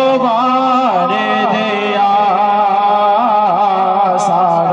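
A man singing a Punjabi naat, devotional praise of the Prophet, into a microphone through a sound system, in long held notes that bend up and down in pitch.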